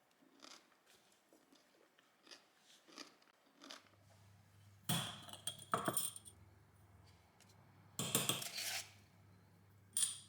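Kitchenware being handled: a few light taps, then three loud clattering bursts of dishes and utensils, under a faint low steady hum that starts about four seconds in.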